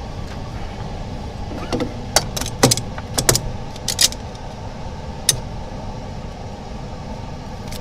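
A quick run of sharp clicks and taps, from about two to four seconds in and once more past five seconds, as phone screen parts are handled and seated in a laminator's mould, over a steady low hum.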